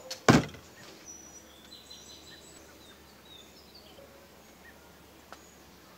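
A single dull thump about a third of a second in, as a ball of bannock dough is slapped down against the wooden cutting board on the table. Afterwards faint, short bird chirps.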